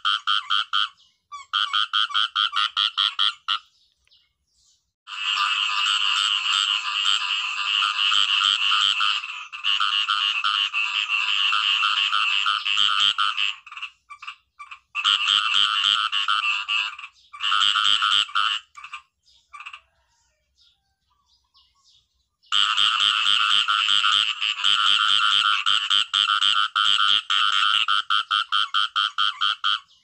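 Khiat i-mo frogs (a small Thai frog) calling in long bouts of rapid, evenly pulsed croaks, broken by short pauses. The longest pause comes a little past the middle. A fainter, deeper pulsed call joins now and then.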